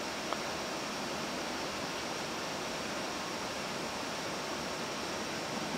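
Steady rushing hiss of an Airbus A340-300 flight deck in flight, the even background noise of air around and inside the cockpit, with one faint click about a third of a second in.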